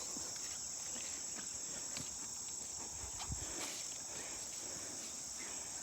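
Steady, high-pitched chorus of insects droning without a break, with a few faint soft knocks.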